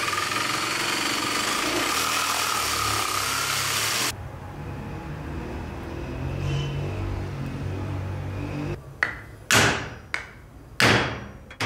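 A Bosch jigsaw cuts a slot into the top of a wooden axe handle for about four seconds, then stops abruptly. Near the end, a few hammer blows drive a glued wooden wedge into that slot to tighten the axe head on its handle.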